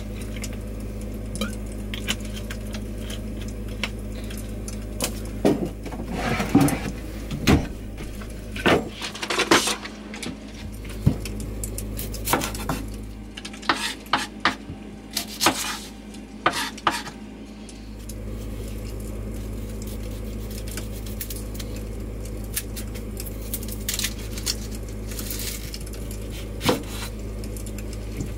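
Scattered clinks and knocks of a frying pan, kitchen utensils and a knife on a wooden cutting board, busiest in the middle, over a steady low hum.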